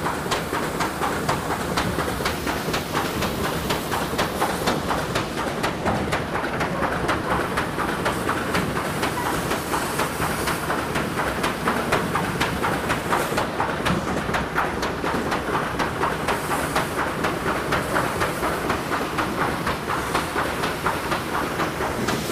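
A.K. Robins flood-style washer and incline cleated belt conveyor running, with a steady rhythmic clacking from the machine over the hiss and splash of water from the spray bars.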